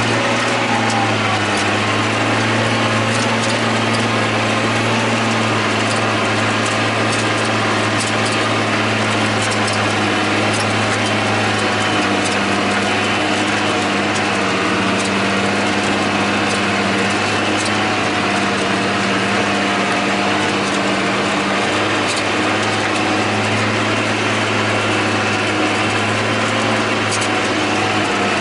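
John Deere 8100 tractor's six-cylinder turbo-diesel engine running steadily at about 1,760 rpm, heard from inside the cab while it pulls a disk ripper through the field.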